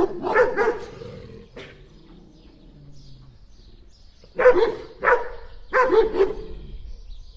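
Dog barking in short, sharp barks: a few near the start, a pause of about three seconds, then four barks in quick succession.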